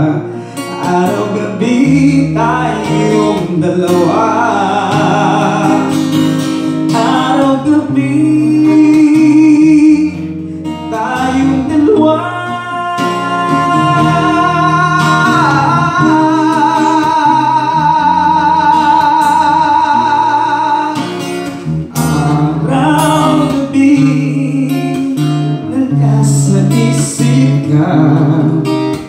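A man singing into a microphone, accompanied by an acoustic guitar, holding long notes with vibrato through the middle of the passage.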